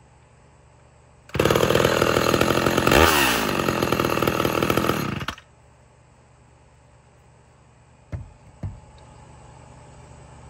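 Warm Homelite Super XL two-stroke chainsaw catching at once and running for about four seconds, revved up once in the middle and dropping back, then switched off abruptly. Two short knocks follow near the end.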